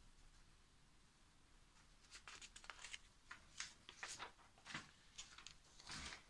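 Near silence: quiet room tone, with a scatter of faint, short clicks and rustles over the last few seconds.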